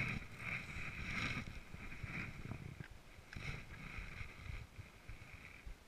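Mountain bike ride heard from a helmet-mounted camera: an uneven rumble from the tyres and wind on the microphone, with a steady high buzz that fades in and out.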